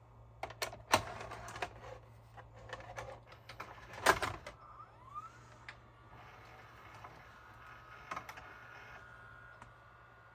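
Mechanism of an LG RC7000 VHS/DVD recorder clicking and clunking several times, the loudest knocks about one and four seconds in. A short rising whine just after five seconds, then a steady whir, under a constant low hum.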